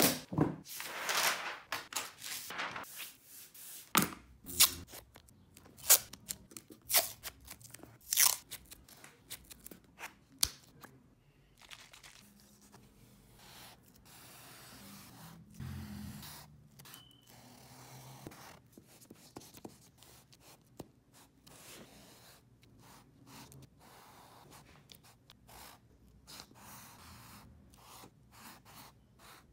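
Sharp clicks and taps, roughly a second apart, as a large sheet of board and paper is handled; after about eleven seconds a wide-tipped paint marker rubs and scrapes across paper in long strokes.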